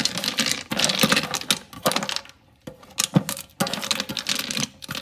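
Ice cubes clattering and clicking against the sink and the garbage disposal's drain opening as they are pushed down into it by hand, in irregular bursts with a short pause about halfway through.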